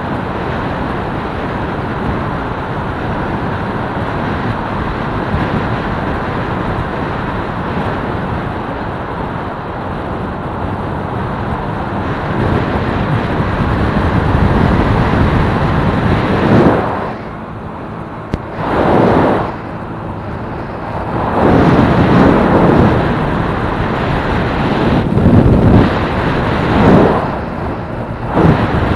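Wind rushing over the microphone of a small step-through motorcycle on the move, with its engine running underneath. In the second half the wind buffets the microphone in several loud gusts.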